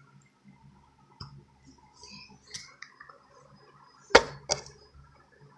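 Faint scattered clicks, then two sharp knocks about half a second apart about four seconds in, the first the loudest.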